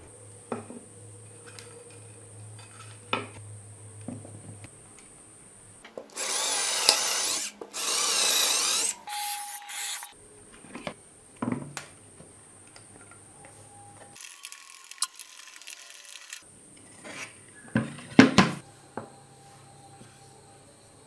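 A small power tool runs in two bursts of about a second and a half each, starting about six seconds in, then gives a few brief blips. Scattered clicks and taps of small parts being handled come around it, with a cluster of sharper knocks near the end.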